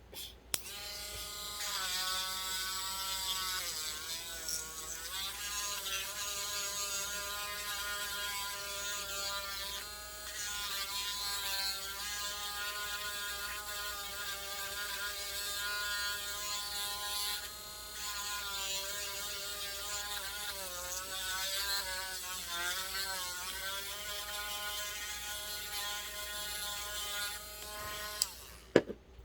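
Small electric rotary sanding tool running with a steady whine that dips in pitch now and then as it bites, widening the hole of a replacement action-figure neck socket. It switches on with a click and cuts off with a couple of clicks near the end.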